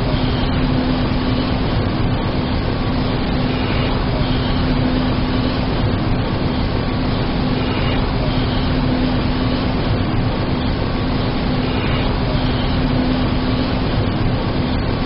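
80 MW electric arc furnace running, its arcs making a loud, steady, noisy din with a steady low hum underneath.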